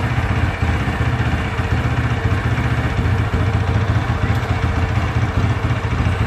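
Quad bike engine idling steadily, with no revving.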